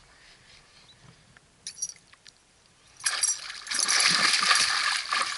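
A hooked pike thrashing at the surface, with loud splashing that starts about three seconds in and goes on to the end.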